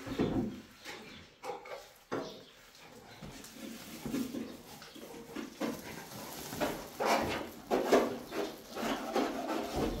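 Irregular rustling and scraping of a woven plastic sack being handled and shaken, white plaster powder pouring out of it onto a cloth. The sounds come thicker and louder in the second half.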